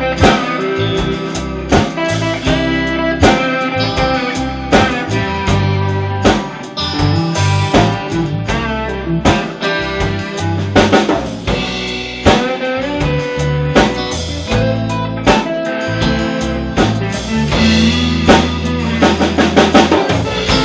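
Rock band playing an instrumental passage with no singing: electric and acoustic guitars over a drum kit keeping a steady beat.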